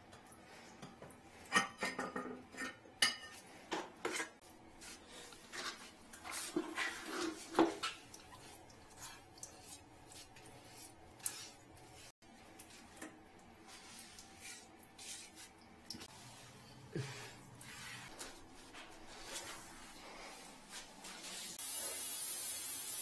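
Hands pressing and smoothing wet white grout around a toilet's base on a tiled floor, with scattered small knocks, scrapes and rubbing. About 22 seconds in, a shower head starts spraying water with a steady hiss.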